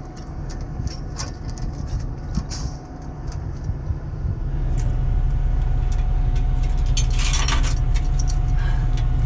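Heavy tow chains clinking and rattling as they are handled and wrapped around a bus axle, over a steady low engine rumble that grows louder about halfway through.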